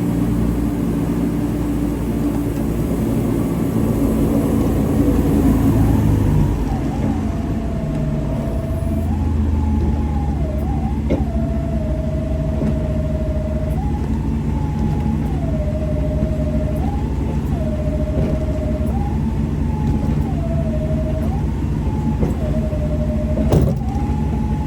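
A two-tone siren wails, stepping back and forth between a higher and a lower note about every two seconds, over an engine running steadily underneath. There is one sharp knock near the end.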